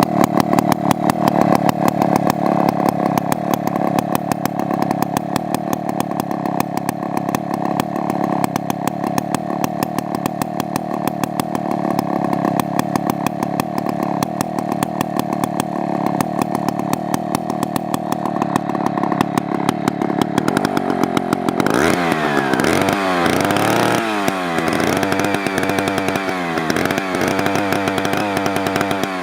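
Freshly rebuilt Solo 125's 125cc engine running at a steady idle, then revved up and down several times over the last several seconds.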